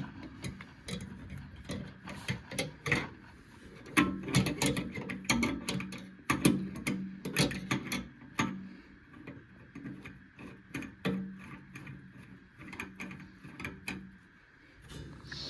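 Hand tools and metal brake-line fittings clicking, clinking and knocking in an irregular run of sharp taps as the fittings are worked by hand, over a faint steady hum.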